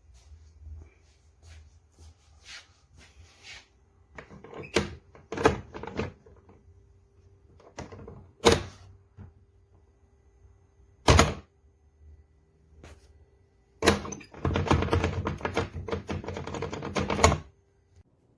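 Hard plastic and metal fitting hardware of a rooftop cargo carrier being handled and fitted: scattered knocks and clicks, a few of them loud, then about three seconds of rapid clattering near the end.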